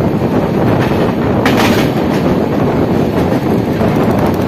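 Passenger train running at speed, heard from inside the coach: a steady loud rumble of wheels on rail with rattling clatter as the wheels cross points and rail joints, sharpest about a second and a half in and again near the end.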